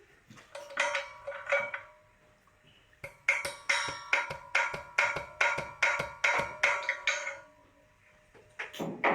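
Metal clicking and clinking as a pressure gauge regulator is fitted onto an oxygen cylinder valve and tightened, each click ringing on in the metal. There are a few clicks at first, then an even run of about three a second.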